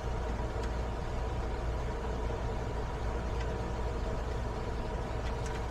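Steady low machine hum with a few faint, light clicks of parts being handled.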